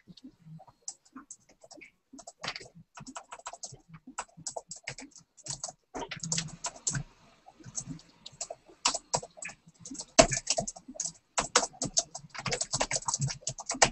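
Typing on a computer keyboard: irregular runs of key clicks, coming fastest near the end.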